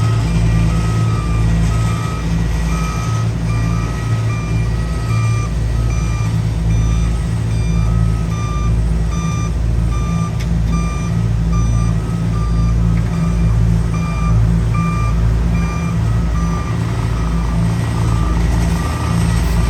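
Heavy paving machinery running with a loud low rumble that throbs about once a second, while reversing alarms beep steadily over it at about two beeps a second.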